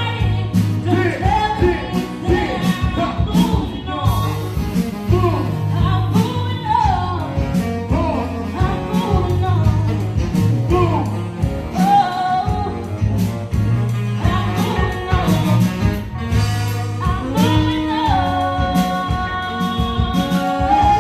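A live band playing a song, with a singer's melodic vocal lines gliding over a steady bass. The singer holds a long note near the end.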